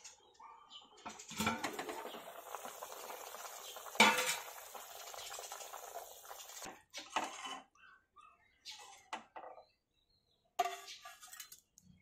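Steel pot and lid clattering, then pork boiling in water with a steady bubbling hiss and one loud metal clank about four seconds in. In the second half, a steel ladle knocks and clinks several times against a steel bowl as the boiled pork is scooped out.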